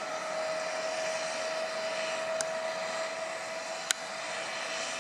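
Diesel engines of Atlas road-rail excavators running steadily with a constant whine. Two sharp clicks come near the middle and about four seconds in, the second one louder.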